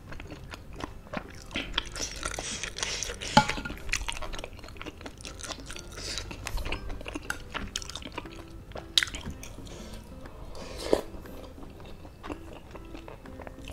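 A person eating spicy noodle soup up close: wet chewing and mouth clicks, with several short slurps of noodles off a spoon.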